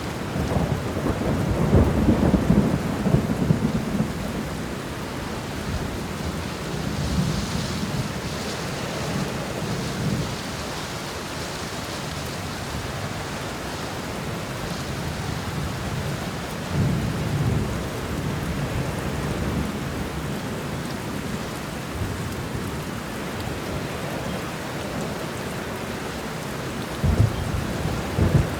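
Steady heavy rain falling, with low rolls of thunder rumbling several times: strongest in the first few seconds, again around the middle and just before the end.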